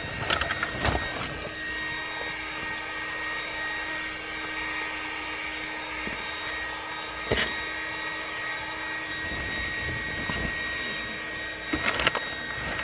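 Electric air pump running steadily as it inflates an inflatable canoe, a constant hum with a few knocks and rustles close to the microphone near the start, about seven seconds in and near the end.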